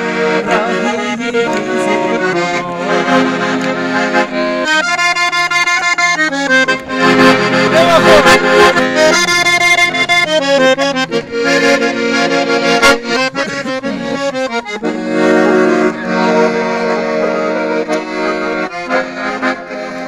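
Accordion playing a lively Avar folk tune, with quick runs of fast repeated notes in the middle and a man's voice singing along in places.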